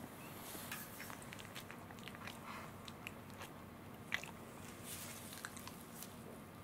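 Faint, irregular little clicks and smacks from a dozing Welsh corgi's mouth, with one sharper click about four seconds in. Under them runs the steady low hum of an electric fan.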